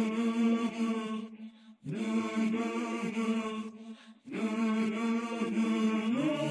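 Wordless vocal chant: voices holding one low note on a steady drone, in three phrases with two short breaks between them.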